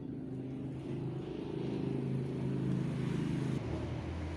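An engine running steadily, getting a little louder, then dropping suddenly to a lower, steadier hum about three and a half seconds in.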